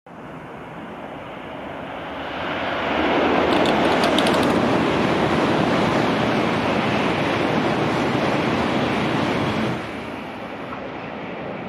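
An N700A Shinkansen bullet train passes through the station at speed without stopping: a rushing roar of air and wheels. It builds over about three seconds, holds loud and steady, then drops away suddenly near the end as the last car goes by.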